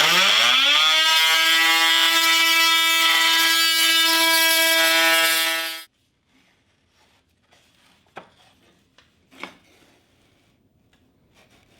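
Festool Vecturo OSC 18 cordless oscillating multitool undercutting a wooden door jamb with a flush-cut blade. It gives a steady high buzz that rises in pitch over the first second as it comes up to speed, runs for about six seconds and then stops abruptly. A few faint knocks follow.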